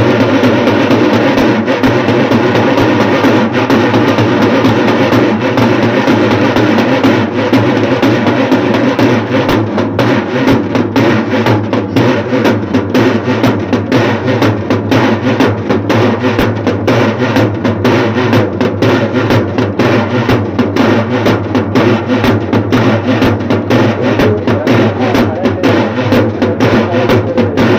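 Loud, fast drumming, many strokes a second, over a dense steady din; the strokes stand out more sharply from about nine seconds in.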